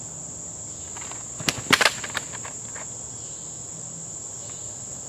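Steady high-pitched insect chorus, with a cluster of sharp clicks or snaps about one and a half to two seconds in.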